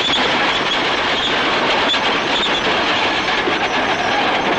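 Crawler tractor running with its tracks clanking, a loud, steady rattling clatter.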